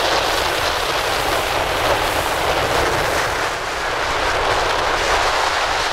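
Steady loud rushing of wind on the microphone and water around a boat under way.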